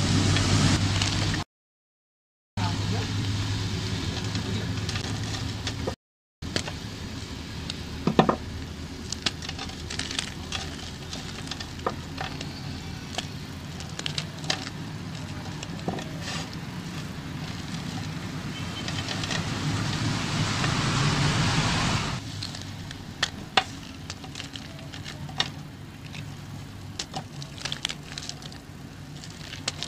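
Hands squeezing and crushing soft gym chalk into powder: a dry, crisp crunching and crackling with many small sharp crunches, over a low steady hum. The sound cuts out to silence twice in the first several seconds.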